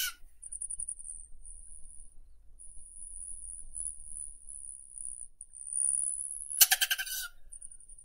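Rufous hummingbird: a thin, very high buzz broken by short gaps, and near the end one rapid stuttering chatter lasting under a second.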